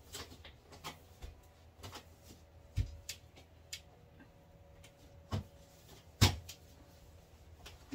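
Scattered knocks and clicks of containers and plastic shelf parts being handled inside an open refrigerator during cleaning. Three sharper knocks stand out, the loudest about six seconds in.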